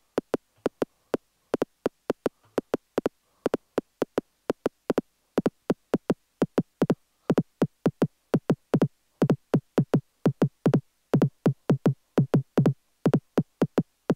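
Korg Electribe ESX-1 sampler playing a kick drum sample cut very short by the amp envelope, so each hit is a brief click with a quick downward pitch drop. The hits are sparse at first, then fill in to a busy repeating pattern of about four a second.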